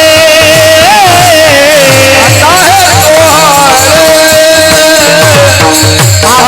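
Devotional kirtan singing: a single voice holds long, ornamented notes of a kirtan tune, bending and wavering in pitch, over a drum keeping a steady rhythm.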